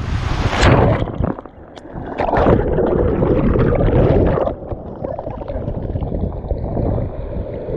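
Sea waves surging and washing over shoreline rocks, two big surges in the first half, then a steadier rush of water, with wind buffeting the microphone.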